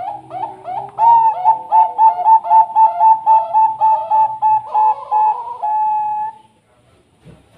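Zebra dove of the Thai-bred 'perkutut bangkok' line cooing: a fast run of short, clipped notes, about four a second, louder after the first second and closing with one longer held note about six seconds in.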